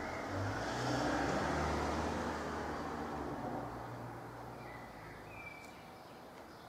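A passing motor vehicle: a low engine hum that swells about a second in and then fades away. A couple of faint, short high chirps come near the end.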